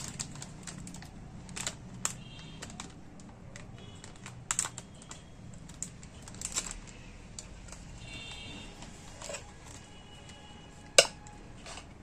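Sporadic light crinkles and clicks of a polythene bag being handled while jalebi batter is poured into it from a steel bowl, with one sharp click near the end as a spoon scrapes the bowl.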